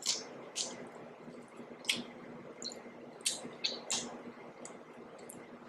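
Close-up wet mouth sounds of eating: lip smacks and sticky chewing clicks, about eight sharp ones scattered through.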